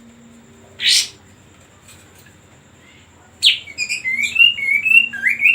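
Kapas tembak bulbul giving one sharp, brief call about a second in, then a fast, warbling song phrase of short whistled notes that rise and fall, starting about three and a half seconds in and running on to the end.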